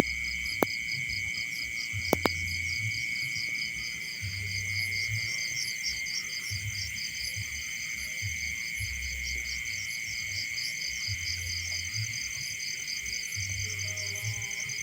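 Crickets and other insects trilling steadily at several high pitches, one of them in rapid pulsing chirps, with intermittent low rumbling on the microphone. A few sharp clicks come in the first couple of seconds.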